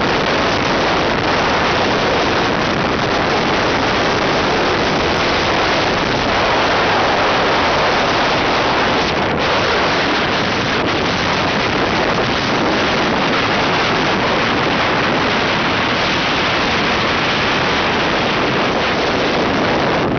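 Steady rush of wind buffeting the microphone of a camera travelling at road speed.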